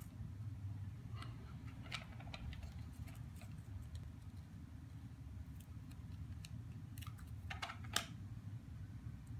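Faint paper crackles and small clicks from handling a roll of self-adhesive photo corners and peeling a corner off its backing, with one sharper click about eight seconds in, over a steady low hum.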